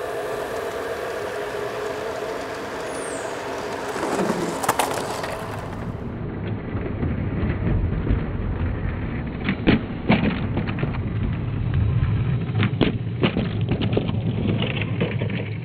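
G-scale model freight train running on outdoor track: a steady rumble of wheels, then, about six seconds in, a closer, lower rumble broken by many sharp clicks and cracks.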